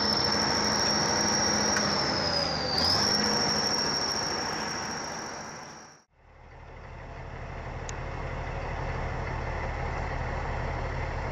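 Heavy machinery running with a steady high-pitched squealing whine over it, dipping briefly about three seconds in. It fades out about six seconds in. Then a heavy vehicle's engine runs steadily at a low, even pitch.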